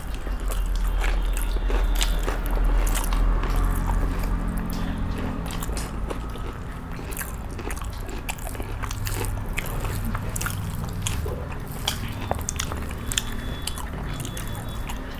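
A person eating close to the microphone: chewing, with many small, irregular mouth clicks and crunches.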